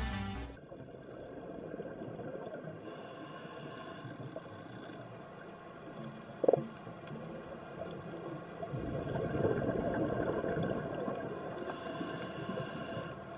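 Underwater ambience through a camera housing on a reef dive: scuba regulator breathing, with a short hiss of inhaling twice and a louder stretch of rumbling exhaled bubbles in the latter half. A single sharp click sounds once in the middle.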